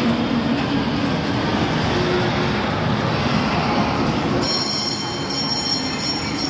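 Miniature kiddie train running around its floor-laid rail track, with a steady rumble of wheels on the rails.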